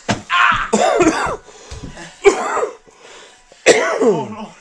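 Three loud, strained vocal outbursts from a person, like grunts or groans, not words; the last one, near the end, falls in pitch.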